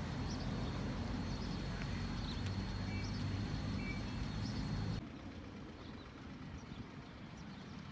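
Steady low rumble of a car driving, heard from inside the moving vehicle, which cuts off abruptly about five seconds in to a quieter street background with a few faint high chirps.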